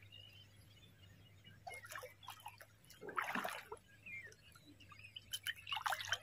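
A hooked snakehead (murrel) thrashing and splashing at the water's surface as it is reeled in: a short splash about two seconds in, a louder one just after three seconds, and another near the end.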